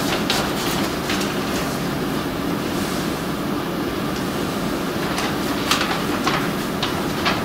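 Paper rustling and crackling as a large folded document is handled and unfolded, in short bursts about a second in and again near the end, over a steady background noise.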